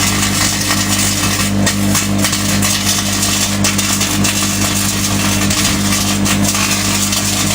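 Microwave oven running with tin foil inside: a steady low electrical hum under a dense crackling buzz from the foil arcing and throwing off plasma.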